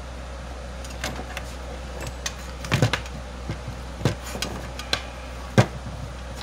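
Handling knocks on a workbench: a plastic oil bottle and the sheet-metal blower housing tapping and clunking as they are handled and set down. The taps come irregularly, with the loudest knock about five and a half seconds in.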